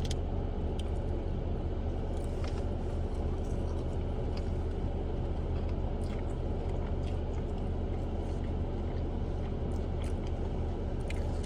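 Steady low hum of an idling car engine heard from inside the cabin, with a few faint small clicks.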